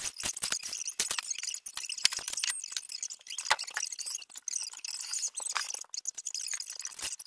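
Handling noise: irregular clicks, clinks and rustling as things are moved about in a closet.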